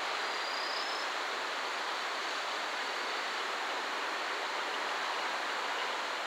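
Steady outdoor rushing hiss, even in level throughout, with no clear rumble or wheel noise standing out from it.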